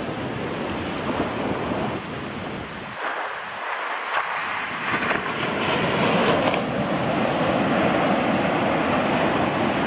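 Arabian Sea surf on the shore: a steady wash of waves, a wave breaking with a hissing surge about five seconds in, then a louder continuous rush of water.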